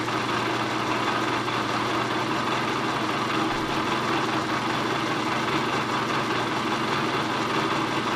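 Bridgeport milling machine running steadily with a 1/8-inch end mill cutting a small flat: an even hum with a few steady tones.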